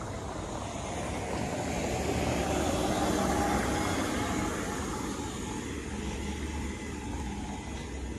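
An open golf cart driving past close by: a rushing sound that builds, is loudest around three to four seconds in, then fades.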